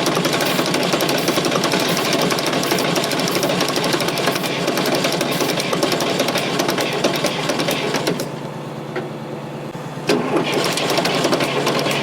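Fordson Super Major's 3.6 L diesel being cranked over by the starter motor without catching, a fast even chugging. The cranking stops about eight seconds in and starts again about two seconds later.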